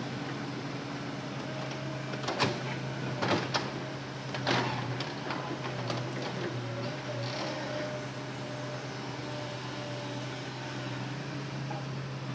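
Hitachi Zaxis excavator's engine running at a steady drone, with a few sharp knocks and clunks between about two and five seconds in.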